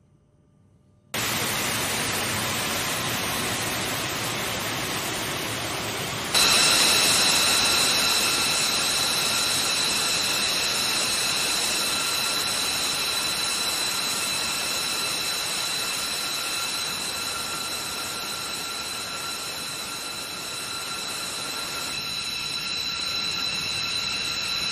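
B-2 Spirit bomber's jet engines running: a loud steady rush starts suddenly about a second in, and a high turbine whine with several steady tones joins it about six seconds in.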